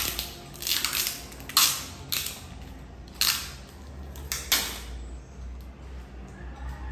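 Brown packing tape being pulled off its roll in short, rasping rips, about six pulls in the first five seconds, as it is wound around a roller pole joint, followed by quieter handling.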